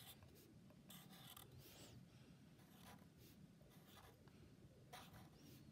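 Faint scratching of a Sharpie permanent marker on paper, several short strokes as stripes are drawn.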